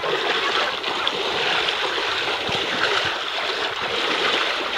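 Muddy water sloshing and splashing close by as someone moves through a shallow pool of it: a steady, continuous wash without distinct single splashes.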